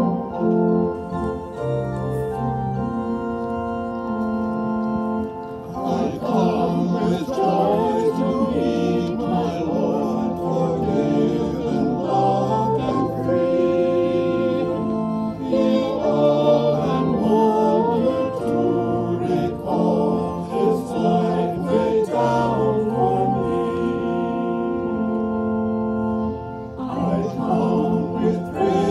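Church organ playing held chords, joined about six seconds in by singing with vibrato. The singing drops out briefly near the end while the organ carries on, then comes back.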